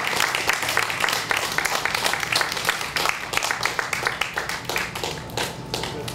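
Audience applauding, many hands clapping at once, the clapping thinning out a little toward the end.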